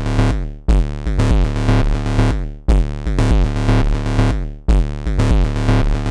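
Elektron Analog Four analog synthesizer playing a looping sequenced pattern, with oscillators set to feedback and neighbor-track modulation, over a four-on-the-floor kick. The loop repeats about every two seconds, starting each time with a sharp loud hit, and its tones sweep downward in pitch.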